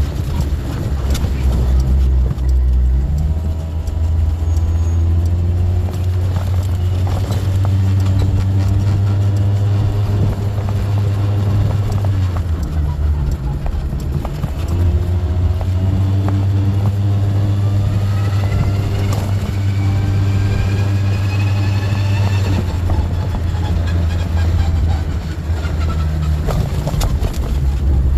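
Canopy scooter running on the road with a loud low droning 'boo' (ブー), an abnormal noise that comes on from about 20 km/h upward. The engine note rises for a few seconds past the middle, then falls away while the drone carries on.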